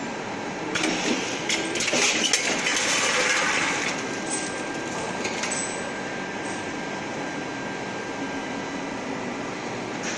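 Two-lane automatic packing machine running, with a cluster of clicks and knocks over its hum in the first few seconds, then a steady even running noise.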